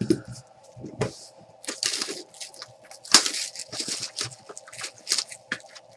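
Trading cards and pack wrapping handled by hand: a quick, irregular run of short crinkles, tearing and rustling as a pack is opened and the cards are gathered.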